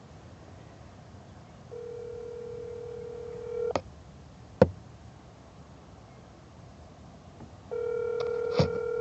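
Telephone ringback tone heard through a phone's speaker: two rings, each about two seconds long and about four seconds apart, as the call rings unanswered at the other end. A couple of sharp clicks come between the rings.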